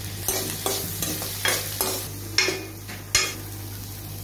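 A steel ladle stirring and scraping sliced onions and potato cubes around a black iron kadai, with a series of metal clinks and scrapes, the sharpest a little after two and three seconds in, over a steady sizzle of frying in oil.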